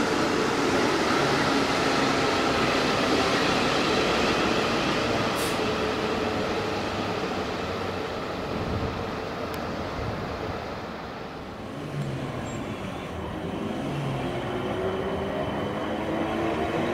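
A South Western Railway train running through Surbiton station: a steady rumble with a pitched whine. It eases off about two-thirds of the way through, then the whine climbs in pitch and grows louder near the end as a train picks up speed.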